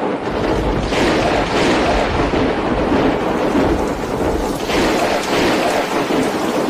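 Thunder rumbling steadily through a thunderstorm, with the hiss of rain underneath and no single sharp crack.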